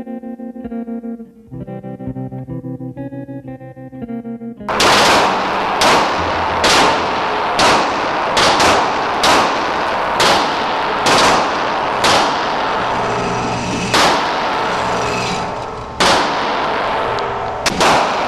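Guitar music for the first few seconds, then a sudden cut to loud gunfire at a shooting range: about a dozen single shots, at first roughly a second apart and then more widely spaced, over a continuous dense din.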